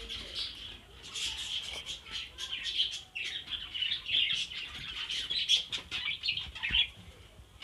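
Small birds chirping, many short high chirps overlapping in a busy chatter that thins out near the end.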